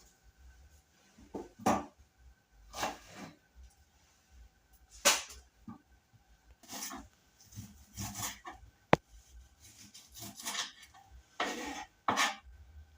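Knife slicing a bulb onion on a chopping board: irregular scraping cuts, roughly one a second, with one sharp click about nine seconds in.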